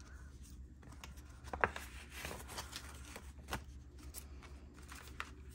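Paper cash envelopes and a cash wallet being handled on a desk: soft rustling and sliding with a few sharp clicks, about a second and a half in, again about three and a half seconds in, and near the end. A faint low hum runs underneath.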